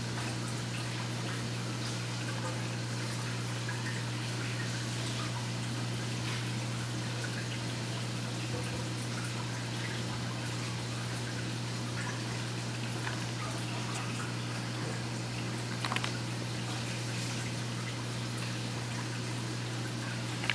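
Saltwater aquarium's pump and circulating water: a steady low hum under a constant trickling hiss of moving water, with a couple of short clicks near the end.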